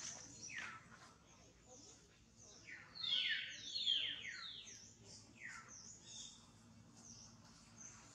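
Birds calling: rapid high chirps, each a quick falling sweep, coming in a dense cluster about three to four seconds in with scattered single chirps before and after.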